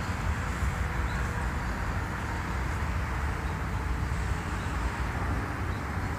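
Steady outdoor background noise: a low, uneven rumble with the hum of distant road traffic, and no distinct events.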